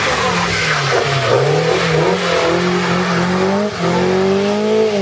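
A rally car's engine running hard, its pitch dipping and climbing back, then dropping briefly near four seconds in and rising again.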